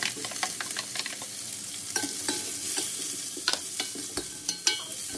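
Chopped ivy gourds (dondakaya) frying in a hot-oil tempering of mustard seeds, dals and curry leaves: a steady sizzle as they are stirred, with frequent short sharp clicks.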